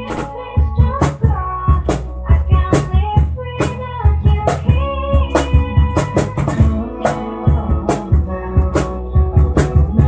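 Instrumental break of a pop-rock song: a drum kit keeps a steady beat under guitar and a melodic lead line.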